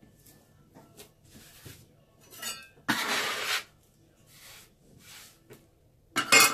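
Hands kneading bread dough on a floured wooden board: soft rubbing and pressing noises, with a louder stretch of about half a second around three seconds in. Near the end a stainless-steel bench scraper scrapes sharply across the board.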